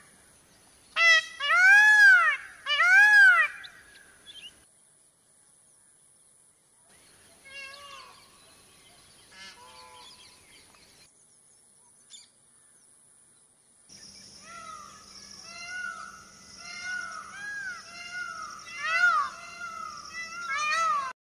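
Indian peafowl (peacock) calling: three loud, wailing calls that rise and fall in pitch in the first few seconds, fainter calls around the middle, then a quick run of shorter calls near the end. A thin, steady high-pitched tone runs underneath.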